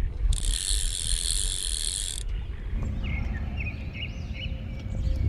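Fly reel's click drag buzzing for about two seconds as line is pulled off the reel, over wind rumble on the microphone. Birds chirp in the second half.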